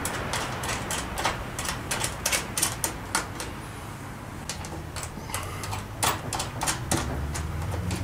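Irregular small metal clicks and taps as nuts are fitted by hand onto the screws of a garage-door emergency-release lock through the door's steel strut, over a low steady hum.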